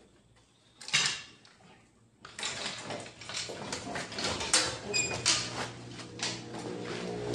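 A single sharp metallic knock about a second in, then from about two seconds in a run of irregular metal clinks and clatters, some ringing briefly, as tools and parts are handled during work on a truck engine.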